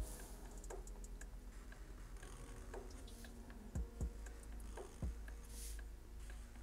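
Black felt-tip marker drawing short strokes on paper: irregular soft taps as the tip touches down and brief scratchy squeaks as it drags, several in a few seconds.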